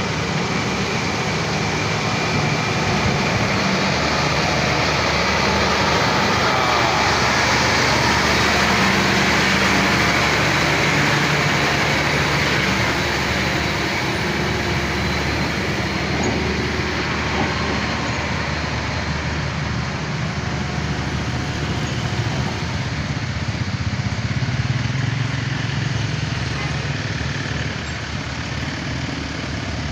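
Road traffic of heavy trucks going past, a steady mix of engine and tyre noise that grows louder for several seconds about a fifth of the way in, then eases.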